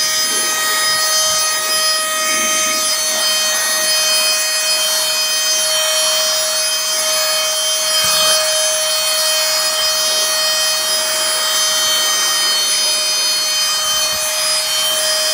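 Canless Air O2 Hurricane cordless electric air duster running flat out while blowing dust out of a cabinet: a steady high-pitched motor whine over rushing air. Its pitch starts to fall at the very end as it spins down.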